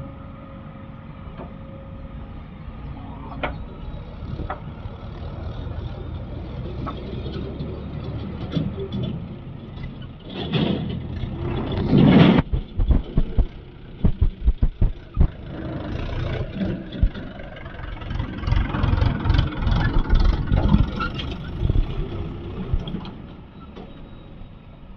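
Diesel engine of a backhoe loader working under load. A loud surge of noise comes near the middle, followed by many irregular heavy knocks and clatters as the machine digs and loads mud.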